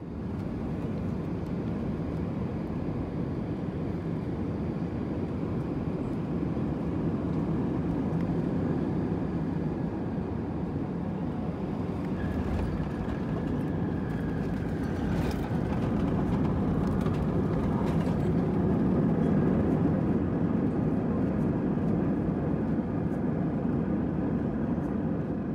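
Cabin noise of a jet airliner landing: a steady rushing roar on final approach, a low bump as it touches down about halfway through, then a louder roar with a few knocks and rattles as it slows on the runway with its wing spoilers raised.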